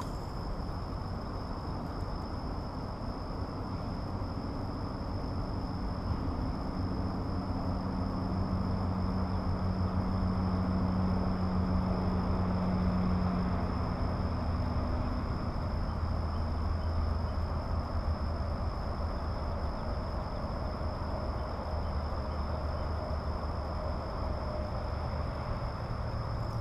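Distant engine rumble that swells to its loudest about halfway through and then fades, like a vehicle passing some way off, over a steady high-pitched insect drone.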